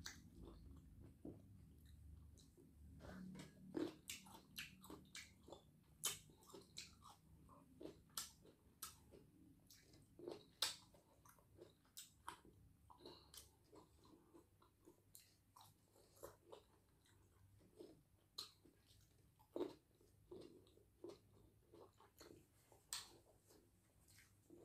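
Close-miked mouth sounds of a person biting and chewing black grapes: quiet, irregular clicks all through.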